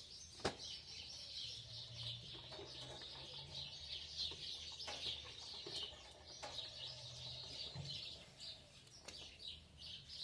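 Many small birds chirping and singing together in a dense, continuous chorus, some louder and some softer, with one sharp click about half a second in.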